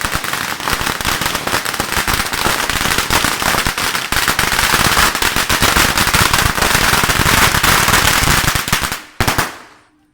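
A long string of Chinese-style firecrackers going off in a dense, continuous crackle of rapid bangs, stopping about nine seconds in with one last crack and fading out.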